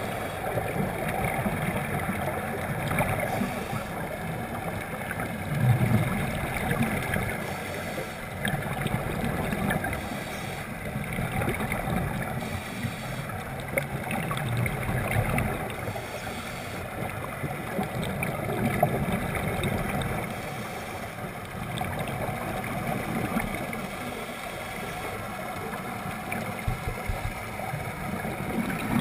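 Muffled underwater sound from a camera held by a scuba diver: a steady rush of water with the bubbling of regulator exhalations swelling and fading every few seconds.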